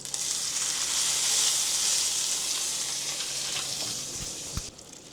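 Strips of pork bacon sizzling hot on a baking sheet, a loud, even hiss that fades slowly. Near the end there are two short low knocks, and then the sizzle cuts off abruptly.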